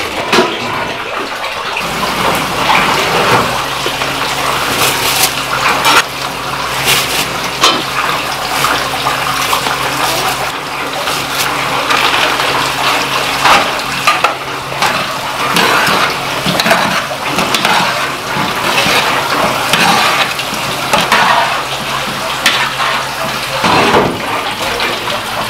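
Large steel pot of water at a rolling boil with dried noodles cooking, bubbling and frothing as they are stirred with metal tongs, with sharp clicks now and then. A steady low hum comes in about two seconds in and stops near the end.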